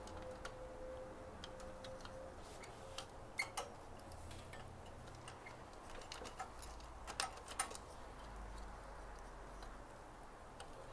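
Scattered light clicks and taps of plastic parts and cable connectors being handled and pulled inside an Epson LQ-690 dot matrix printer, with a few sharper clicks about three and a half seconds in and around seven seconds in, over a faint low hum.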